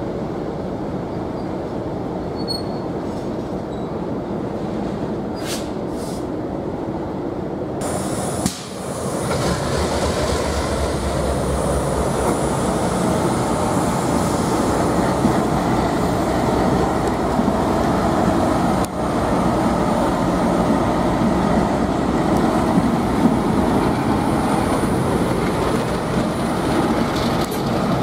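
Train hauled by FPA diesel locomotives running by, a steady diesel drone with rail and wheel noise that grows louder about eight seconds in.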